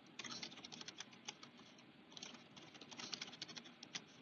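Faint typing on a computer keyboard: two quick runs of keystrokes with a pause of about a second between them, as a password is typed and then typed again to confirm it.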